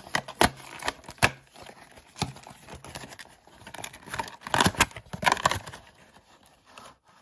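Cardboard booster box and plastic figure packaging being handled: a few sharp clicks and taps in the first couple of seconds, then a stretch of crinkling plastic and cardboard rustle about four to five and a half seconds in.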